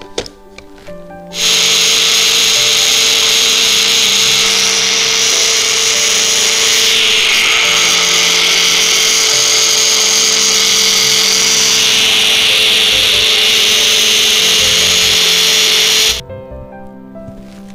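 Small personal bullet blender motor running flat out with a steady whine, blending semi-frozen milk, chocolate sauce and sugar into a milkshake. It starts about a second in and cuts off sharply near the end, with background music underneath.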